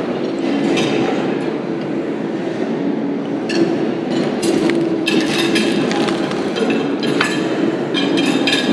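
Cutlery clinking and scraping on china plates, several sharp clinks in clusters from about halfway through, over a steady humming background of restaurant noise.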